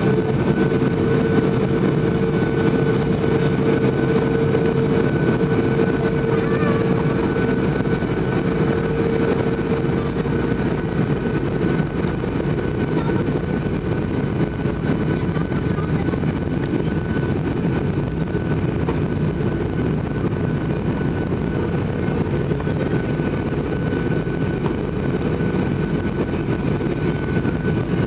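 Steady cabin noise of a Boeing 737 in flight on its descent to land, engines and rushing airflow heard from inside, with a steady whine over it. A lower hum fades out about ten seconds in.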